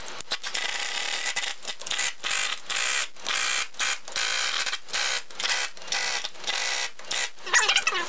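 Pneumatic impact wrench running in more than a dozen short bursts with brief gaps, driving in the bolts of a tractor's front planetary hub cover.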